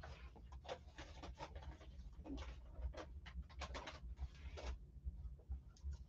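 Faint rustling and scratching of trading-card packaging being handled, in a quick, uneven string of short scrapes.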